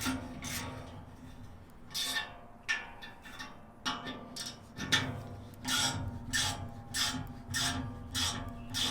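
Rivet Beast chain-rivet tool's drive screw being turned by hand to press the rivet out of a firewood processor chain tooth, in repeated rasping strokes. The strokes are scattered at first, then come about twice a second in the second half, over a steady low hum.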